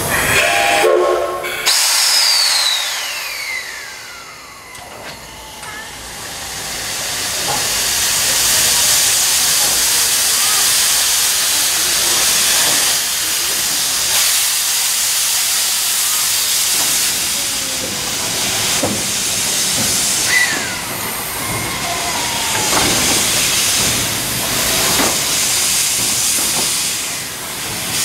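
Japanese C62-class steam locomotive (a 4-6-4 Hudson) gives a short whistle, then steam hisses steadily and loudly, swelling about seven seconds in.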